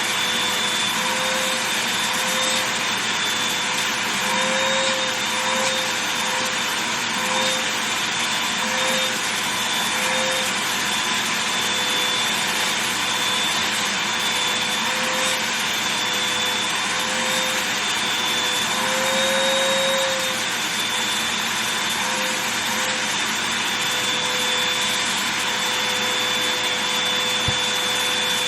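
Vacuum cleaner running steadily over a fabric duffel bag, its motor whine rising briefly in pitch every so often.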